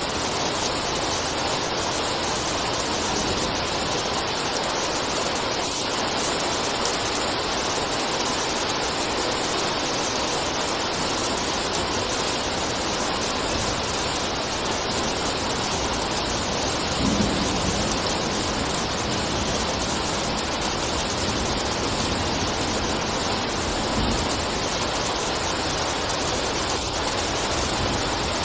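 Steady rain falling, an even unbroken hiss of water. A brief low thump stands out about seventeen seconds in.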